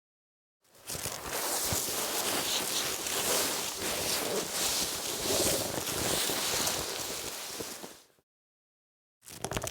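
Fabric rubbing: cloth steadily rustled and scraped against itself in waves for about seven seconds, beginning a moment in and cutting off shortly before another rub starts near the end.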